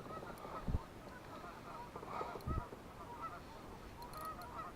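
Geese honking in the background: a scatter of short, faint calls. Two dull low thumps come about a second apart near the start.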